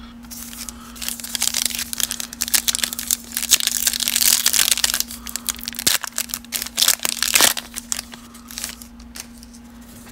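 Foil wrapper of a 2020 Donruss baseball card pack being torn open and crinkled by hand. It is a dense crackling from about a second in until near the eighth second, then it dies down to a few soft rustles.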